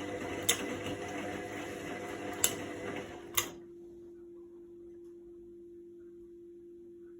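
Indesit front-loading washing machine on its quick wash cycle, running with a motor whine and drum churn, marked by a few sharp knocks. About three and a half seconds in, the drum motor stops with a click, and only a faint steady hum remains as the drum pauses between turns.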